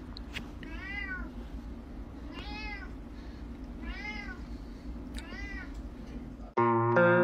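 A kitten meowing four times, about one short call every second and a half, each rising then falling in pitch, over a low steady room noise. Music cuts in abruptly near the end.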